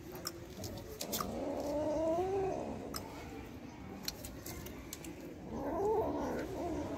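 A kitten gives two long, wavering growl-yowls while feeding on raw meat, typical of a cat guarding its food from others, with light clicks of eating in between.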